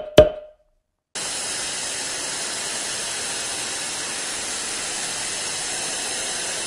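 Two short, sharp ringing hits at the very start. Then, about a second in, a steady television-static hiss starts: an even white-noise rush, a sound effect laid under the static-screen intro graphic.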